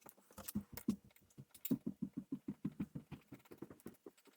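Rapid light clicking and tapping of metal lathe parts being handled and adjusted. The clicks are scattered at first, then run fairly evenly at about seven a second before thinning out.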